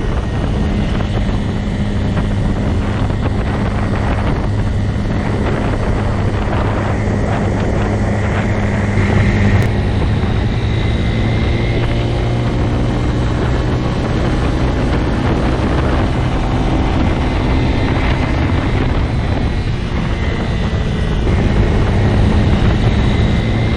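Motorcycle engine running steadily with a low, even drone, its pitch stepping up slightly about ten seconds in.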